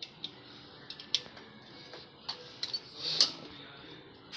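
Small metallic clicks and taps from a TVS King auto-rickshaw's drum brake parts as a pin is fitted into the brake shoe assembly. The loudest cluster comes about three seconds in.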